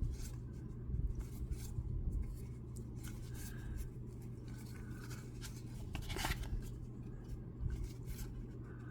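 Foil trading-card pack being opened and its cards handled: faint scratchy rubbing and light clicks, with one sharper click about six seconds in, over a steady low hum.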